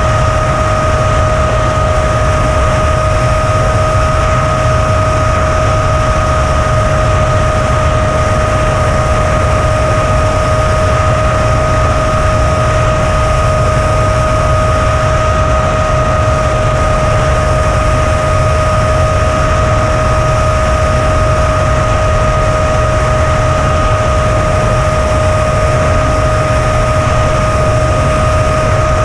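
FPV quadcopter in flight, heard through its onboard camera: a constant high whine holding one pitch over a steady rushing noise and low rumble.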